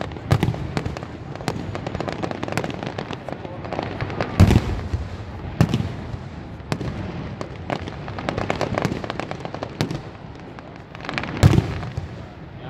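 Aerial fireworks shells bursting in a display, with a dense run of sharp crackles and pops. Two deep booms stand out, about four and a half seconds in and again near the end.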